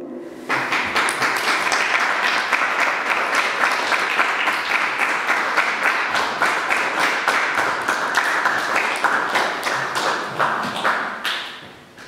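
Audience applauding. The clapping starts about half a second in, holds steady, and dies away near the end.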